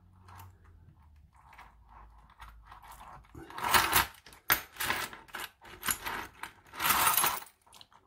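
Brass key and small brass lock core handled together, with light metal clicking and two louder scrapes about three and a half and seven seconds in as the key is worked into the American Lock 1100 core.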